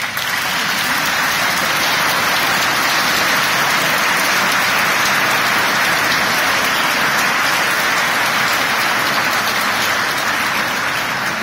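A large crowd applauding: dense, sustained clapping that holds steady and begins to die away at the very end.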